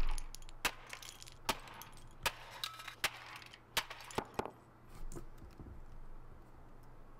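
A hammer smashing a Canon MP20DII plastic printing calculator: about seven sharp cracking hits over the first five seconds, some under a second apart, with plastic keys and pieces breaking off.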